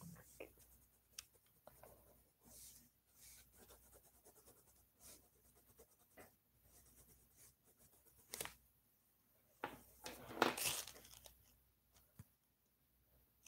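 Faint, irregular scratching of a colouring pen drawn across paper on a clipboard, with a louder rustling scrape of about a second near the end.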